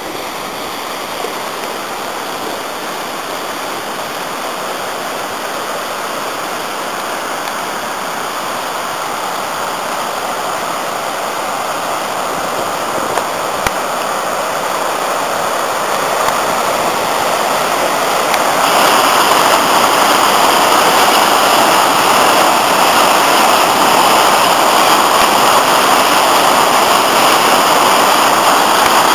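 River in spate after heavy rain, rushing over boulders and rapids in a continuous roar of white water. It grows steadily louder as the rapids get closer, with a sudden step up about two-thirds of the way through.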